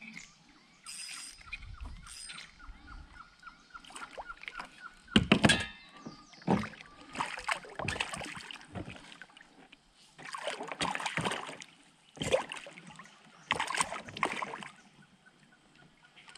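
A hooked piraputanga thrashing and splashing at the side of a kayak in irregular bursts, the loudest a sharp splash about five seconds in.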